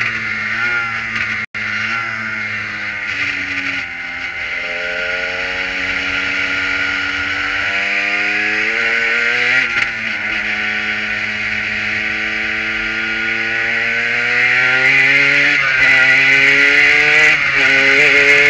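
Kohler-powered prototype race car's engine heard from the open cockpit. It winds down with a brief cut about a second and a half in, then revs up hard through the gears, its pitch climbing and dropping back at each upshift several times. A steady rush of wind and road noise runs underneath.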